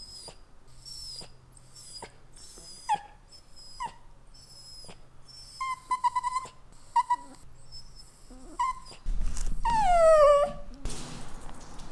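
Italian greyhound whining: a string of short, very high-pitched whimpers, several dipping in pitch. Near the end comes a louder, longer cry that slides steadily down.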